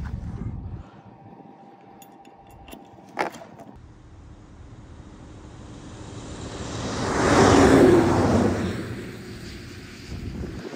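A vehicle passing on a snowy road: engine and tyre noise swells over a few seconds, is loudest just past the middle, then fades, over a low steady engine rumble. A single sharp click about three seconds in.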